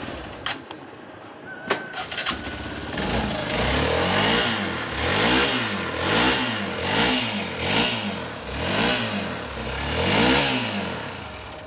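Hero XPulse motorcycle's single-cylinder engine, freshly rebuilt to cure a noise: a couple of clicks, then it starts up about three seconds in and is revved repeatedly, rising and falling about once a second, as a test of whether the noise is gone.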